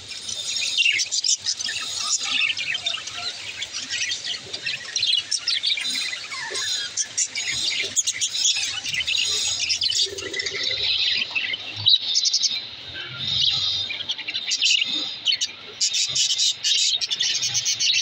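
A flock of budgerigars chirping and warbling together: a dense, unbroken chatter of overlapping high chirps.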